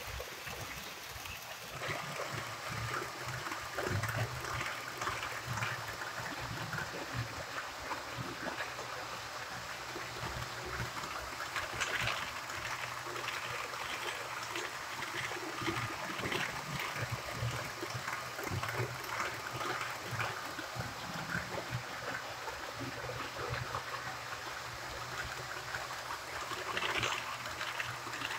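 HO-scale model passenger coaches rolling along sectional track, a steady rolling noise full of irregular clicking from the wheels on the rails and joints. A faint steady whine sits underneath.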